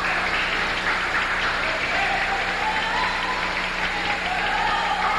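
Spectators cheering and clapping at a basketball game, with shouted voices rising out of the crowd noise from about two seconds in.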